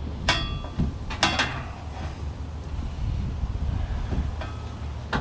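Metal tools and exhaust hardware clinking against the muffler and pipe flange: a few sharp, ringing metallic strikes, about a third of a second in, around a second and a quarter, and again at the end, over a steady low hum.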